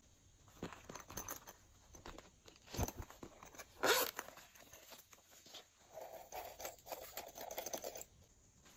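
Fingers handling and picking at a hard plastic character-shaped case: scattered clicks and scratchy crinkling, with one sharp, louder snap about four seconds in.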